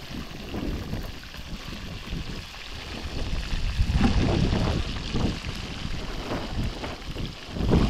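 Wind buffeting the microphone in uneven gusts, stronger from about halfway through, over a steady high hiss of fish frying in a pan of hot oil over a wood fire.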